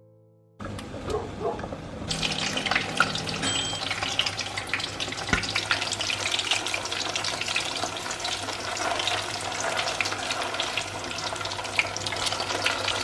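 Chicken meatballs frying in hot oil: a steady sizzle full of small crackles, starting about half a second in and getting louder at about two seconds.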